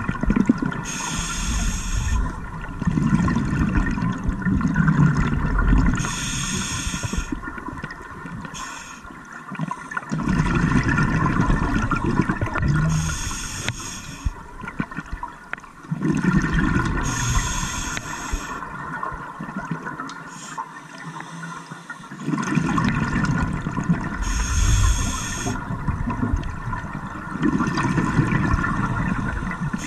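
Scuba regulator breathing heard underwater: a short hiss of each inhale alternates with a longer low bubbling rumble of each exhale, about one breath every five to six seconds.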